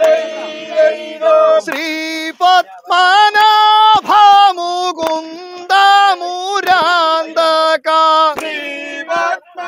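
Vanchipattu, the Kerala boat song, sung loudly in long held notes that step up and down in pitch, phrase after phrase.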